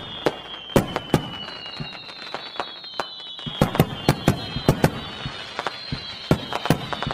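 Fireworks going off: a string of sharp bangs at irregular intervals, over high whistles that slowly fall in pitch.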